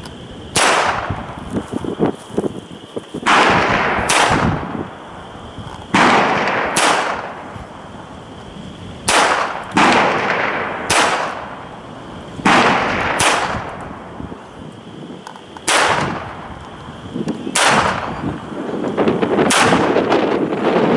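Smith & Wesson Model 41 .22 LR target pistol firing about thirteen single shots, spaced one to two seconds apart with some in quick pairs, each a sharp crack with a short tail. Steady wind noise on the microphone runs underneath.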